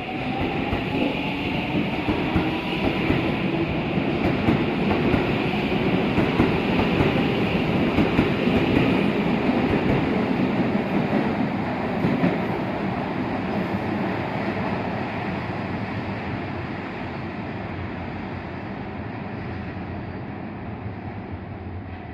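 Shin-Keisei 8800-series electric train pulling away from a station: its traction motors whine, rising in pitch as it accelerates, over the rumble of wheels on rail. The sound builds to a peak about a third of the way in, then slowly fades as the train leaves.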